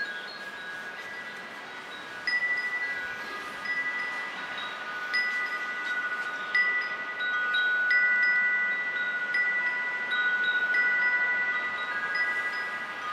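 Chimes ringing: clear, held tones at a few fixed pitches, struck at irregular moments about every second or two so that the notes overlap, over a faint background hiss.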